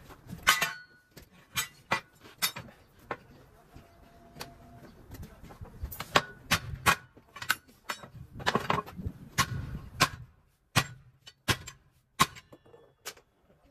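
Irregular sharp metallic clinks and knocks from work on a steel truck wheel rim during a tyre change, a dozen or more at uneven spacing, some ringing briefly.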